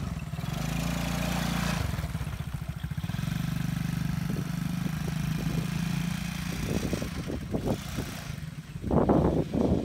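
Small engine of a child's four-wheeler running steadily at low speed as the quad is driven across grass, its pitch shifting once about two seconds in. Near the end, louder irregular knocks and rough noise cover it.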